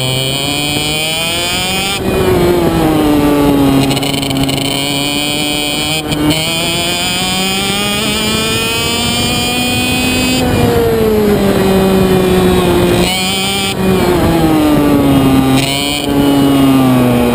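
IAME Reedster KF1 125 cc two-stroke kart engine running hard on track, its pitch climbing slowly as it accelerates and then dropping sharply several times as the throttle is lifted for corners.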